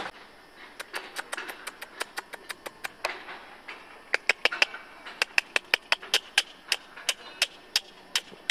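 White storks clattering their bills: a long series of dry, rapid knocks, about six a second, in several bouts that grow louder from about four seconds in.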